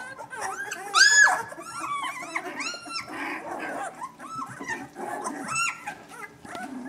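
Litter of newborn Vizsla puppies, eyes still closed, whining and squealing: many short, high-pitched cries, several at once, the loudest about a second in.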